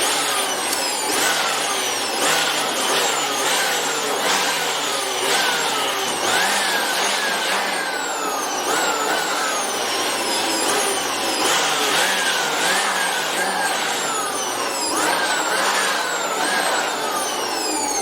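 Makita handheld blower running and blowing dust, its motor pitch surging up and sagging again about once a second as the trigger is pulsed.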